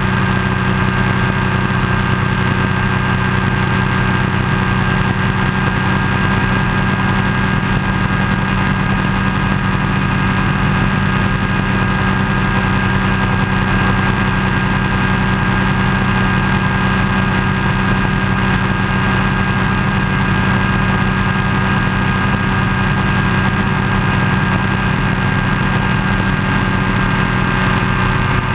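Ultralight floatplane's pusher engine and propeller running at a steady cruise power in flight, an even drone that holds one pitch throughout.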